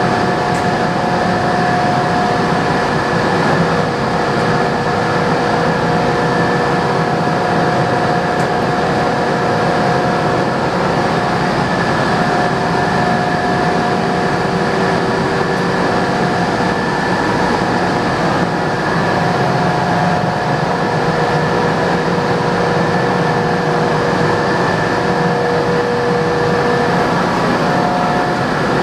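Mazak M5 CNC lathe running with its spindle turning the chuck: a steady machine hum carrying several steady whining tones.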